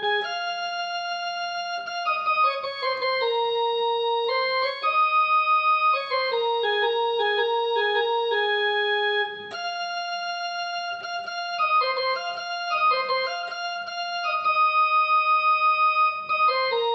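Background music: a slow keyboard melody of held notes, with the phrase starting over about halfway through.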